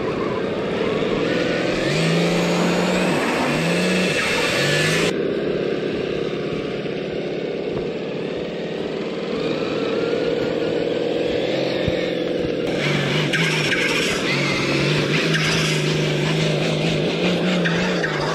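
RC scale crawler's electric motor and geartrain whining as it drives, the pitch rising and falling with the throttle. The sound changes abruptly twice, about five and thirteen seconds in.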